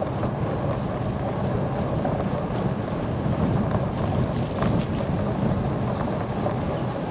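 Steady rumble of wind buffeting the microphone and bicycle tyres rolling on tarmac, with a few faint clicks.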